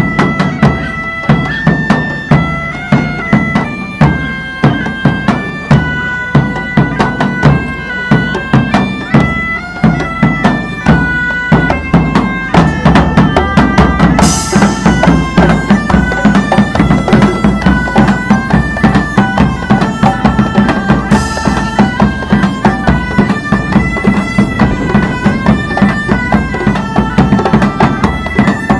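Medieval bagpipes playing a lively stepping melody over a steady drone, with a davul beating a regular pulse beneath. Two bright crashes cut through, one about halfway and one about two-thirds through.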